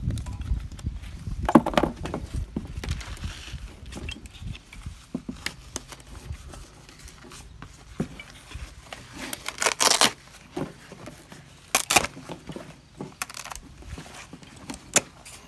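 Scattered clicks, rustles and scrapes of an old vinyl armrest cover being pried off its staples and peeled away from the foam and plastic base with a pick and pliers, with two short louder scraping rips in the second half.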